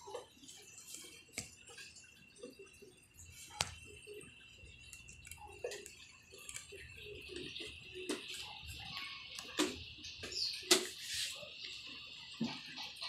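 Guinea pigs eating vegetables and moving about on a plastic grid floor: scattered sharp clicks and small soft sounds, with a faint steady high tone coming in about three and a half seconds in.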